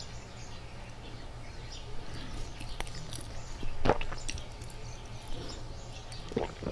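Close-miked eating sounds: soft chewing and small wet mouth clicks over a steady low hum, with one louder knock about four seconds in as a utensil moves in the glass noodle bowl.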